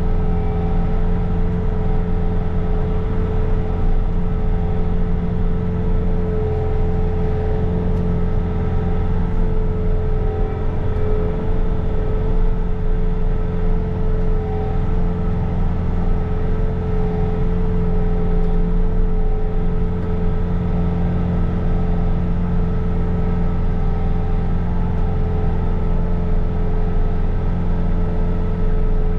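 Bobcat T66 compact track loader's diesel engine running steadily at high revs while it drives a snow blower attachment, with a steady whine over the engine's drone.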